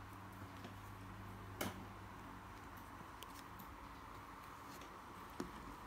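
Quiet room with a steady low hum and light handling noise from hands placing felt craft pieces on a table. There is a sharp click about one and a half seconds in and a softer one near the end.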